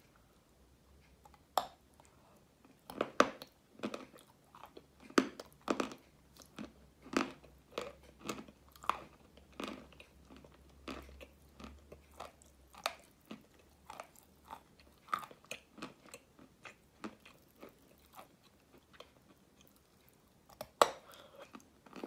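A bar of wet multani mitti (fuller's earth clay) being bitten and chewed close to the mouth, with crisp crunches coming irregularly one or two a second and a sharp bite near the end.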